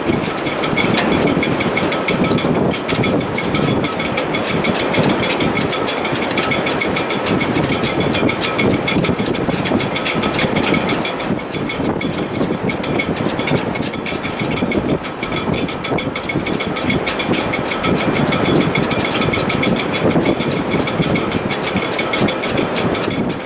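Sailboat rigging, its shrouds and stays, in a strong wind: a steady rushing noise with faint, high whistling tones held through it.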